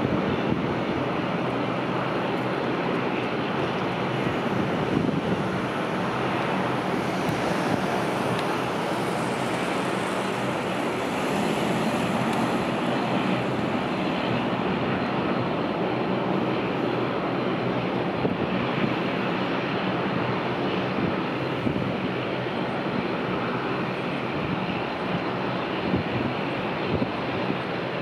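Bombardier Dash 8 Q400 turboprop on final approach to land, its engines and propellers making a steady drone.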